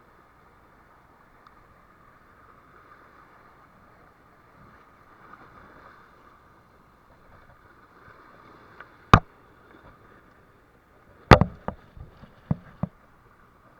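A single sharp knock about nine seconds in, then a quick run of about five knocks some two seconds later, over a faint steady hiss.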